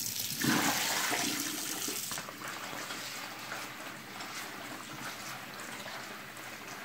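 Tap water running from a faucet into a plastic bowl of sticky rice as hands rub and swish the grains to rinse them. The water is loudest for the first two seconds, then runs on more softly.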